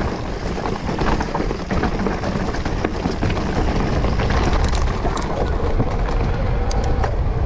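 Mountain bike ridden over a rough dirt trail, recorded on the bike: wind buffets the microphone while the tyres run over dirt and stones and the bike rattles and knocks over the bumps.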